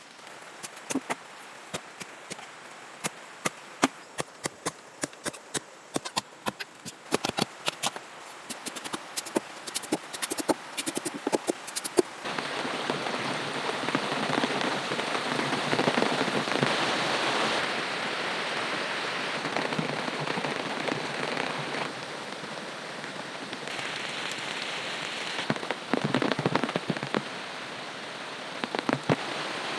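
Heavy rain: for about twelve seconds a dense patter of sharp drops tapping on a surface, then a steady rush of downpour and running water, with a few more sharp taps near the end.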